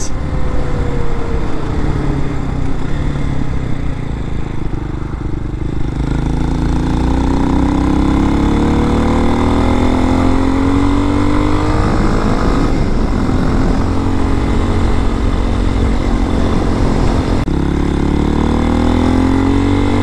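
Single-cylinder CG-type pushrod engine of an RPS Hawk-X 250 dual-sport motorcycle under way: the engine note falls as the bike slows over the first few seconds, then rises as it accelerates, holds, and after a brief break near the end climbs again.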